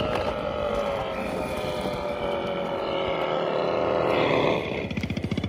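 Synthetic engine sound from the Segway Ninebot GoKart Pro's built-in speaker, which plays a simulated motor note that follows the throttle. The engine-like tone slides slowly down in pitch, then about four and a half seconds in it drops away into a fast, even throbbing, like an idle.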